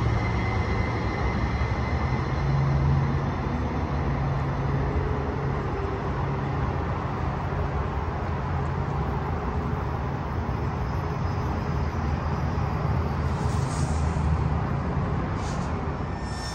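Link light rail train running away along the elevated track, a steady low rumble of its running gear, with a faint high wheel squeal that dies out in the first second. A few short hisses near the end.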